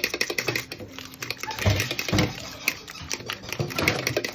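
A fork whisking a carbonara sauce of egg, cheese and cream in a bowl: quick, uneven clicking and tapping of the tines against the bowl, with a few duller knocks.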